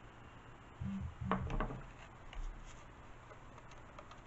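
Small handling sounds as a model-airplane wing and a glue bottle are worked by hand: a short cluster of soft, low knocks and rubs about a second in, a lighter one a little later, otherwise quiet room tone.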